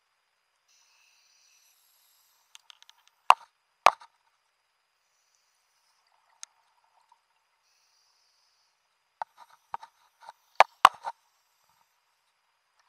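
A scuba diver's breathing heard through an underwater camera housing, in two breaths. Each begins with a faint hiss from the regulator on the inhale, followed a couple of seconds later by a cluster of clicking, popping exhaust bubbles with two loud pops.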